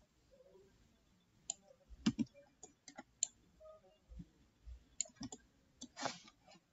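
Faint computer mouse clicks, irregular and in small clusters, as nodes are selected and dragged.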